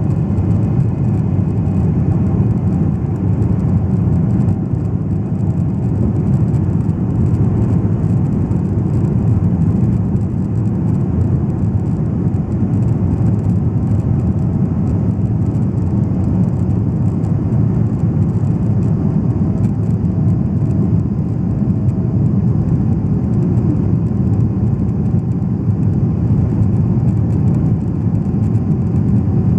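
Jet airliner's engines at takeoff thrust, heard inside the cabin: a loud, steady low roar through liftoff and the climb-out, with a faint steady whine above it.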